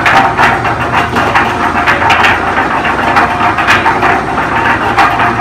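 Suncoo 5 cubic foot electric cement mixer with a 4/5 horsepower motor running empty on its first start, drum turning: a steady motor hum with irregular clacks about once or twice a second. Not super quiet.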